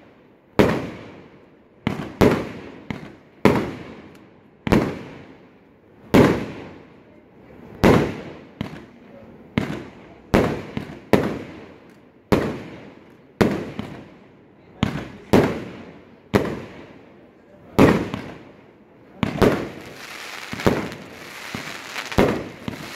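Aerial fireworks bursting in quick succession, about one sharp bang a second, each dying away with an echo. Near the end a steady crackling hiss of crackle effects rises beneath the bangs.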